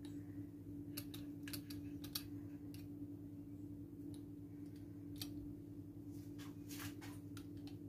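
Pizza-cutter wheel rolling through a soft boiled whole-wheat flatbread and clicking against a plastic cutting board: scattered light clicks, unevenly spaced, over a steady low hum.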